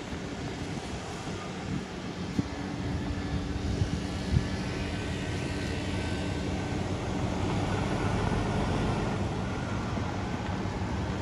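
An engine running steadily with a low hum, its noise swelling a little in the second half.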